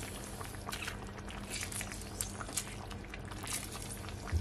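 Sauce simmering around salmon fillets in a cast iron skillet: a soft bubbling with scattered small pops, over a faint steady hum. A brief low thump comes near the end.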